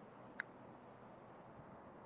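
Near silence: faint steady hiss, with one short sharp click about half a second in.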